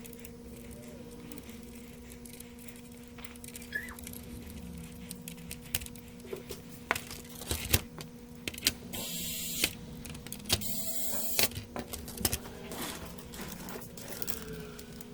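Irregular clicks, knocks and small metallic clatter of console parts and tools being handled on a workbench, with two short bursts of hissing about nine and ten and a half seconds in, over a faint steady electrical hum.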